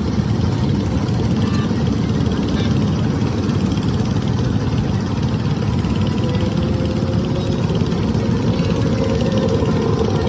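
A steady, low mechanical rumble, like an engine or motor running without pause, with a faint steady whine entering about six seconds in.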